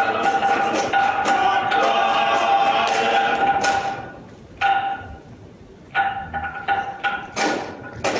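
Polynesian drum group performing: group singing in held notes over a steady drum beat at about four strokes a second, played back over a video call. About halfway the audio breaks up into short choppy fragments as the streamed playback stalls.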